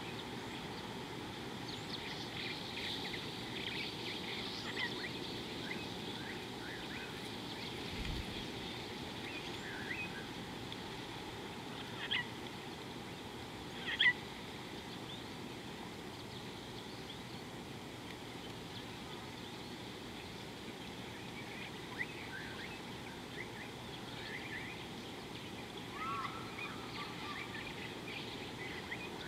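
Wild birds chirping with short, scattered calls over a steady low background noise. Two louder, sharp chirps come about halfway through, and a short, lower call comes near the end.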